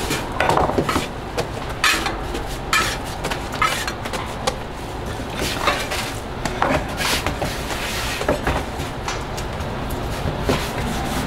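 Metal spatula scraping and clacking against a steel griddle at irregular intervals as hotteok are turned, over a steady low background noise.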